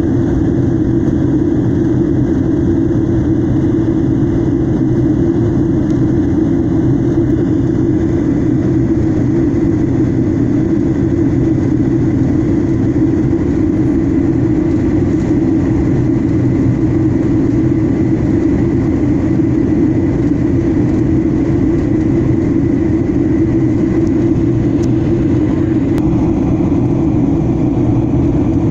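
Jet airliner cabin noise heard from a window seat: a loud, steady drone of the engines and rushing air, with a faint high whine held steady from about eight seconds in.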